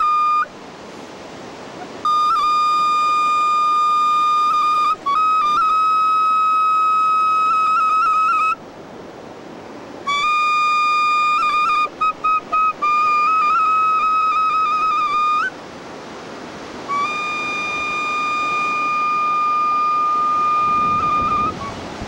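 Flute-like wind instrument playing long, steady held notes at nearly one pitch, with brief flutters and grace notes, stopping three times for a few seconds. A steady hiss fills the gaps between the notes.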